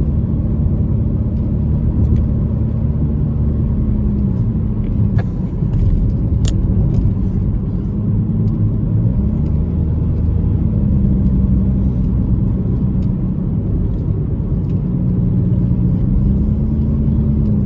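Car engine and road noise heard from inside the moving car: a steady low drone whose engine pitch drops about four seconds in, climbs again around nine seconds, and rises once more near the end, as the car slows and speeds up on a winding road.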